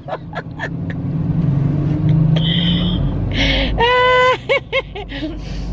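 Low steady rumble of a car on the move. A little past the middle comes a short held tone, then a few brief pitched sounds.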